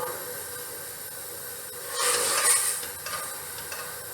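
Pan of boiling vinegar-and-sugar pickling liquid being stirred as a cornflour slurry is drizzled in, with a steady hiss. A louder sizzling hiss swells for under a second about two seconds in.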